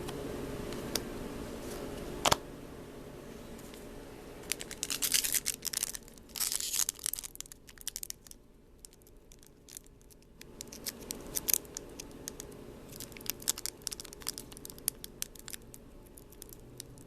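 Foil trading-card booster pack wrapper being torn open and crinkled in the hands, in several crackly bouts, with a sharp snap about two seconds in.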